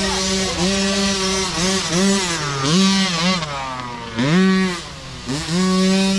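Small youth dirt bike engine revving up and down as the rider works the throttle on a rough trail climb, its pitch dropping and rising several times and holding steady near the end as the bike comes close.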